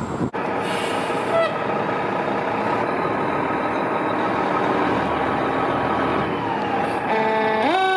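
Fire engine running as it starts to roll out of the station bay, with a steady hum. Near the end its siren starts up, climbing sharply in pitch.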